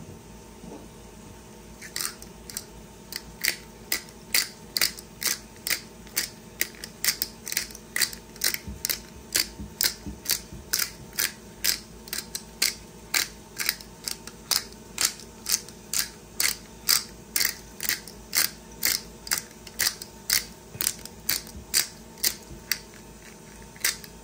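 Pepper mill grinding peppercorns onto raw meat: a steady run of short, crunchy grinding clicks, about two a second, starting about two seconds in and stopping just before the end.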